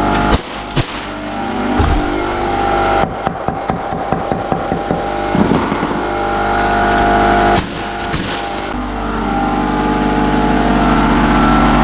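A steady, loud motor drone, interrupted by several sharp knocks and, a few seconds in, a quick run of regular ticks.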